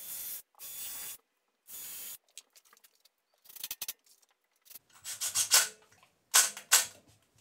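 Short, noisy scraping and rubbing bursts as plywood jig parts are handled and held on the saw table, then louder bursts near the end from a cordless drill boring pilot holes into the 3/4-inch plywood.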